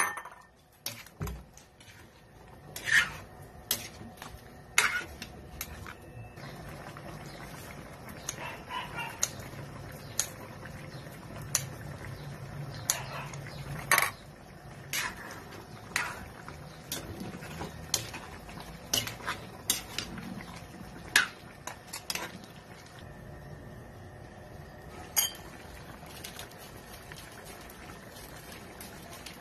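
Metal clinks and knocks against an aluminium cooking pan, irregular and a second or two apart, growing sparse over the last several seconds.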